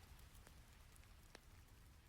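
Faint steady rain hiss with a low rumble under it, broken by two sharp fire crackles, one about half a second in and a louder one past the middle.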